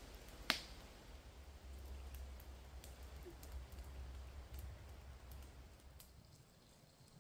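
A wood campfire crackling, with one sharp pop about half a second in and faint scattered ticks after it, over a low rumble.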